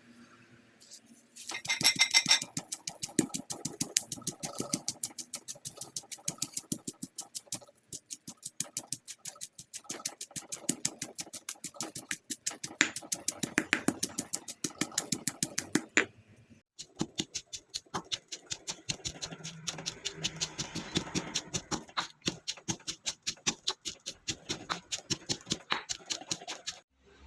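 Pestle pounding in a mortar, fast even strokes of about four a second with two brief pauses, as chilies and other ingredients are crushed into chili paste.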